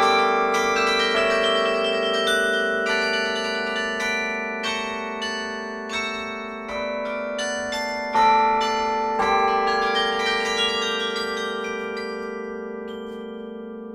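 Carillon bells played from the baton keyboard: a melody of struck bells over long-ringing low bells. Toward the end the strikes stop and the bells ring away.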